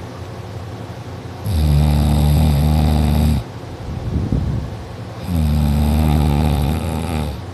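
A sleeper snoring loudly, like a tractor: two long, buzzing snores about four seconds apart, each lasting about two seconds, with quieter breathing between them.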